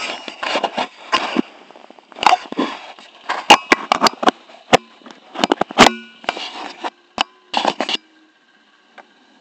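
Camera handling noise: jacket fabric and fingers rubbing and knocking against the camera's microphone, a run of sharp knocks and scraping rustles that stops about eight seconds in.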